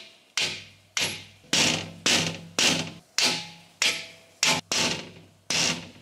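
Hammer blows on a rusted steel sluice gate: about ten hard strikes, roughly two a second, each ringing out briefly. He is hammering to break the gate free of rust after soaking the seized joint with cola.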